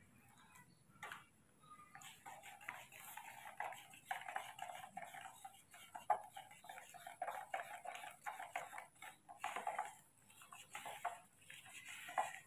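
Newborn macaque whimpering: a run of short, high, squeaky cries repeated over and over, beginning about two seconds in. Just before that there is a faint click.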